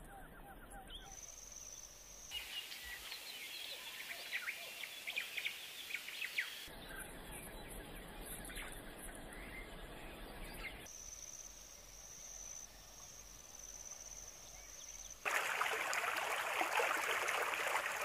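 Wild bird calls in a spliced sequence of nature recordings: short sharp chirps and quick sweeping notes, then a thin, steady, very high tone, then, about three seconds before the end, a much louder dense wash of sound.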